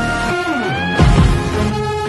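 Background music: held tones that glide upward in pitch, then a deep bass hit about a second in as the beat continues.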